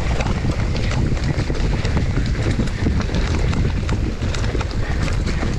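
Mountain bike riding down a dirt singletrack: wind buffeting the microphone and tyres rumbling over the dirt, with many small clicks and rattles from the bike over the bumps.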